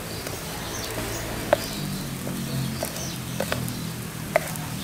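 Thick chocolate brownie batter being poured from a mixing bowl into a square baking tin, with a handful of short, sharp ticks, the loudest about a second and a half in.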